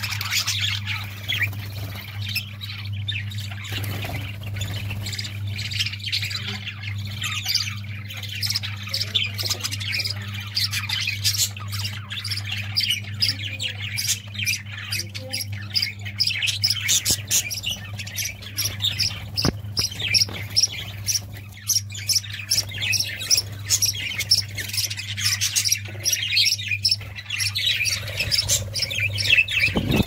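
A colony of budgerigars chattering and chirping, many short warbling calls overlapping without pause, over a steady low hum.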